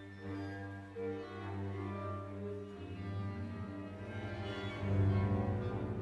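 Symphony orchestra playing contemporary music: low bowed strings hold a steady low note with scattered higher held notes above. About three seconds in, the low note turns into a rapid pulsing and grows louder toward the end.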